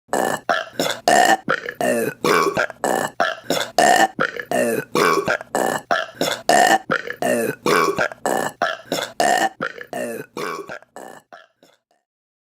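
A rapid run of short female burps, about three a second, each with a falling pitch, weakening near the end and fading out.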